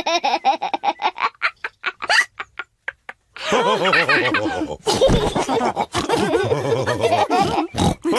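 Cartoon characters laughing together, the laughter breaking into quick short bursts that die away. After about a second of silence, a loud, busy stretch of sound starts.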